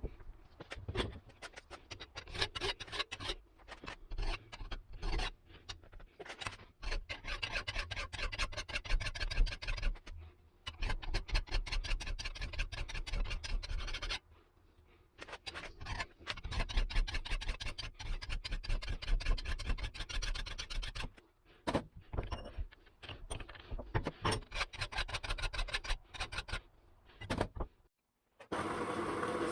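Rapid scraping and rubbing on metal, coming in bursts with short pauses: rust and scale being abraded off a pair of steel side cutters.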